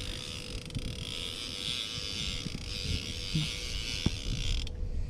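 Wind buffeting the microphone, a ragged low rumble over a steady hiss, with a faint steady hum underneath.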